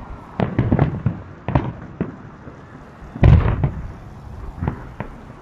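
Fireworks shells bursting overhead in a series of sharp booms, some in quick clusters, the loudest just over three seconds in.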